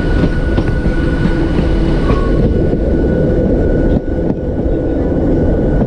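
Hakone Tozan Railway train running, a steady dense rumble and rattle of wheels on rail with a thin steady high tone above it. It dips briefly about four seconds in.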